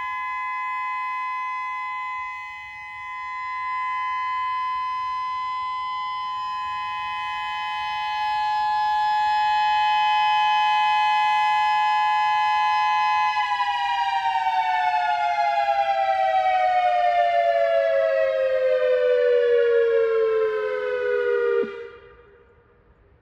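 Whelen WPS-3000 electronic outdoor warning siren sounding a steady two-note tone that fades and swells in loudness. About halfway through it slides steadily down in pitch, then cuts off abruptly near the end.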